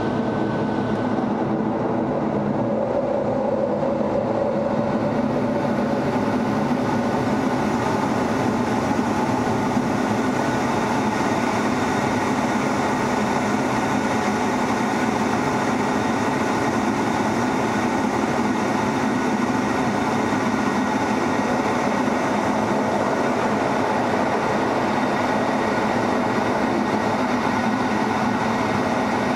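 Steady cockpit noise of an F-16 on its takeoff roll and climb-out, heard from inside the closed canopy: the jet engine running at high power under a dense rushing hiss. The higher hiss builds over the first few seconds, then the noise holds steady.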